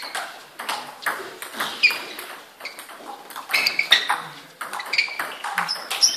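Table tennis rally: the ball clicking sharply off the paddles and table, about two hits a second, mixed with ball hits from rallies at other tables.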